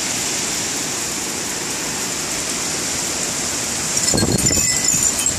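Steady hiss of heavy hurricane-band rain falling. About four seconds in, a gust of wind rumbles on the microphone, with a few faint high pings.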